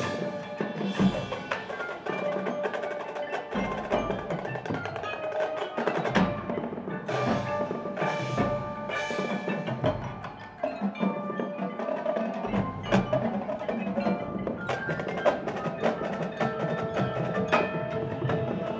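High school marching band playing, with the front ensemble's mallet percussion (marimba, bells, chimes) prominent among struck notes. Deep drum hits land about every two and a half seconds in the first half, then the texture fills out.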